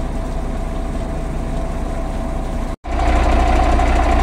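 An engine idling steadily with a low rumble. About three seconds in it cuts out for an instant, then comes back louder with a steady mid-pitched whine over it.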